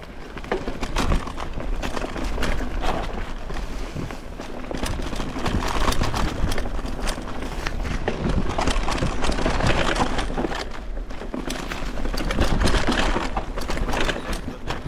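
Mountain bike running down a rough downhill trail: a steady rush of wind buffeting the microphone over tyre noise, with a constant clatter of small knocks and rattles as the bike hits bumps.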